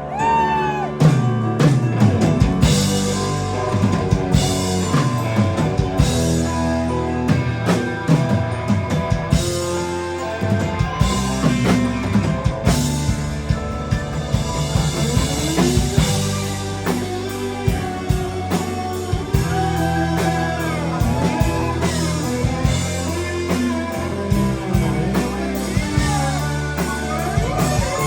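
Live rock band playing an instrumental passage: lead guitar with frequent string bends over a drum kit and a sustained bass line.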